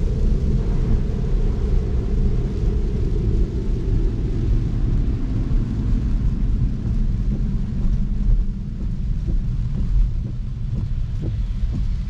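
Cabin noise of a Tesla electric car driving in heavy rain: a steady low rumble of tyres on the wet road that eases somewhat partway through as the car slows, with scattered raindrop taps on the glass and roof in the last few seconds.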